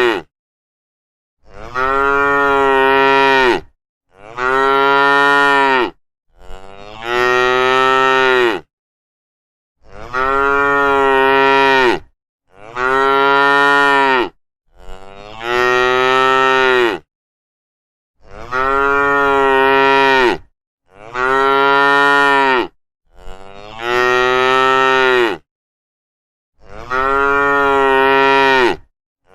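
Cow mooing over and over: about ten long, drawn-out moos of about two seconds each, each dropping in pitch at its end, with dead silence between them.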